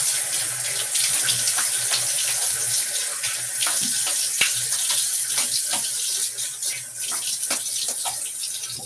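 Bathroom sink faucet running, with irregular splashes as water is scooped and splashed to rinse the face after a shave. It is shut off abruptly at the very end.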